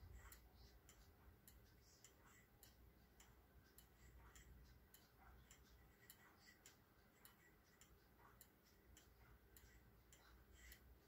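Antique German pendulum clock movement ticking faintly and steadily as its escapement runs. The bim-bam strike is not sounding.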